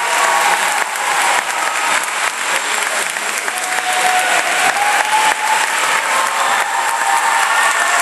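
Large audience applauding steadily, dense continuous clapping.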